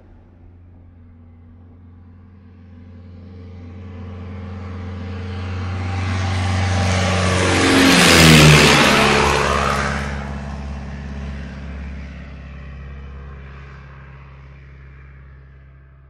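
Single-engine propeller warplane flying past overhead: its engine drone grows steadily louder, drops sharply in pitch as it passes about halfway through, then fades away.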